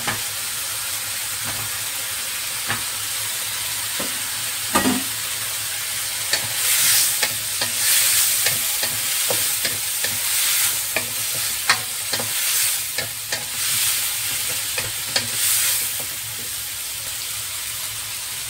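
Beef chunks, onion and tomato sizzling in a wok with a steady hiss. A few sharp knocks come in the first seconds, then a wooden spatula stirs and scrapes in repeated strokes through the middle, and it settles back to an even sizzle near the end.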